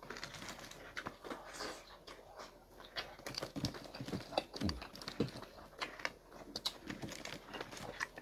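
Close-up eating sounds: irregular crunching, chewing and wet mouth clicks as food is bitten and chewed, with a few low gulps or mouth sounds in the middle.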